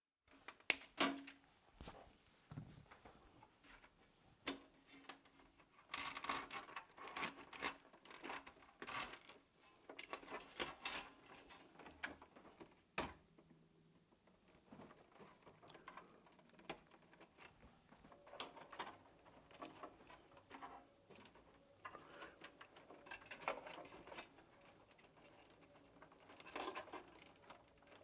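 Handling noise from unplugging and moving power-supply cables and plastic connectors inside a PC case: scattered clicks, taps and rustles, with a sharp knock about a second in.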